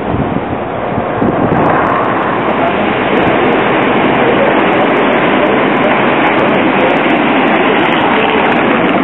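Steady rolling rumble of an Alstom Citadis tram running on street track. It is preceded by about a second and a half of wind buffeting the microphone.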